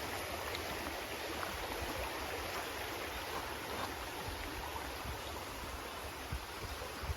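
A small stream flowing steadily, a continuous rush of water, with the water running fairly high.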